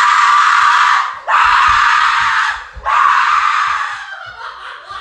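A person screaming: three long, harsh screams with short breaks between them, the last one trailing away.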